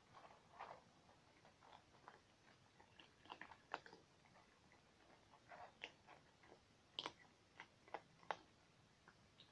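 Several domestic cats eating from a bowl: faint, irregular chewing clicks and crunches, a few sharper than the rest.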